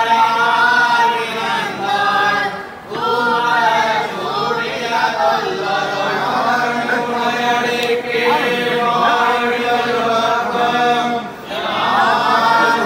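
Group of men chanting together in unison, a Sri Vaishnava temple recitation, in long sustained phrases with short breaks for breath about three seconds in and again near the end.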